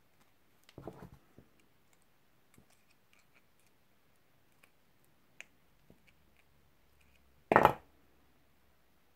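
Small clicks and taps of silver-plated copper wire and hand tools being handled on a work surface. There is a short cluster of knocks about a second in and one louder clack near the end.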